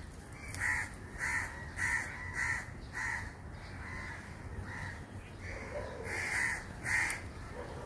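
A crow cawing over and over: short, harsh caws about every half second, thinning out briefly around the middle.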